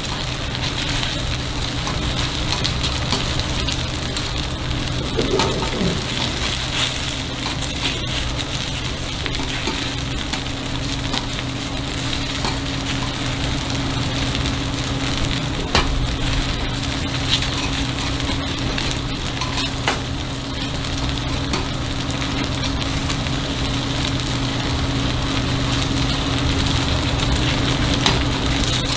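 Takoyaki batter sizzling and frying in a takoyaki pan, with a few sharp clicks now and then and a steady low hum underneath.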